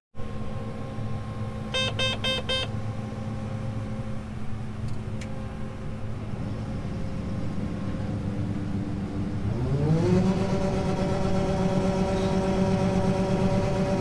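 Combine engine running steadily, heard from inside the cab, with a quick series of about five electronic beeps about two seconds in. About nine and a half seconds in the engine speeds up to a higher steady pitch as the grain unloading auger starts emptying corn into the grain cart.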